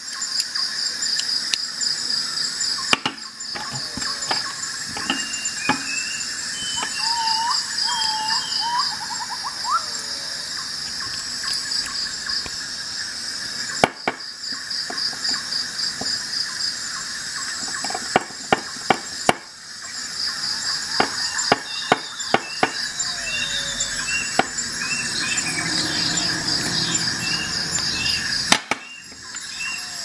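Insects trilling steadily in a continuous pulsing chorus, with scattered short bird chirps and sharp clicks, most of them clustered about two-thirds of the way through.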